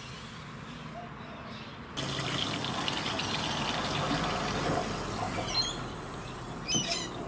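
Water from a garden hose pouring into a slimline 35-litre poly water tank through its filler hole: a steady rushing fill that gets louder about two seconds in. A few bird chirps over it near the end.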